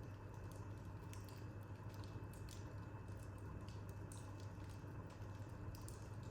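Wood fire burning in an open corner fireplace, crackling with irregular small pops and snaps, several a second, over a faint steady low hum.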